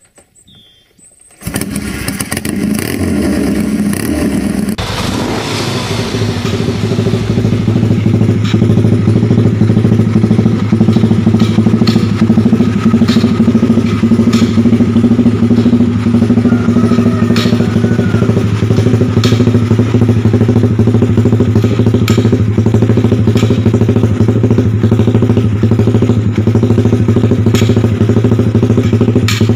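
Suzuki Satria FU 150 single-cylinder four-stroke engine idling through an aftermarket slip-on exhaust, its BRT Juken 5 ECU set for 'timing kuda', the Thai-style uneven, loping idle. The beat pulses irregularly, with occasional sharp cracks.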